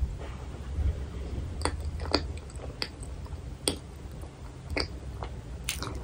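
Close-miked chewing of a frozen cream-filled bun, soft bread and whipped-cream filling, with sharp wet sticky mouth clicks every half second to a second.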